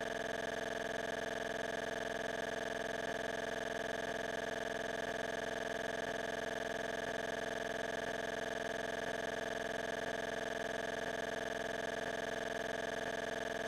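A steady hum of several fixed pitches, holding one level without change.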